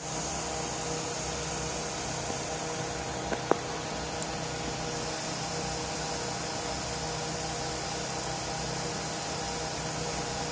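Steady machine hum and hiss with a few faint steady tones, broken by two short clicks about three and a half seconds in.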